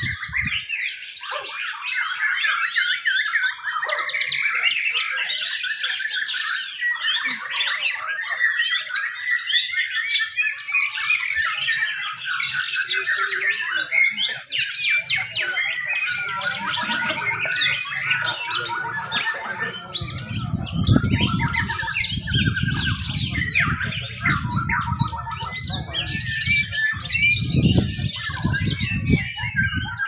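Several caged white-rumped shamas (murai batu) singing at once in a contest, a dense, overlapping stream of quick varied whistles, trills and chirps. A low rumble comes and goes under the song in the second half.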